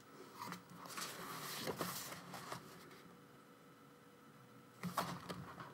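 Crinkling of album packaging and inclusions being handled and pulled out, patchy for the first couple of seconds, then quiet, with a short sharper rustle about five seconds in.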